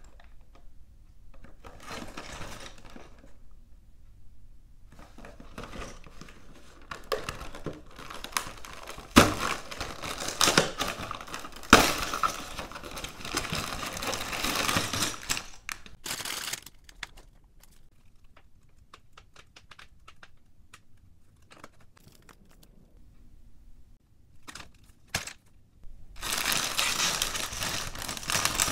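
A LEGO set's cardboard box being handled and torn open, the card crinkling and ripping with a few sharp snaps. Near the end a plastic polybag of bricks crinkles loudly as it is torn open.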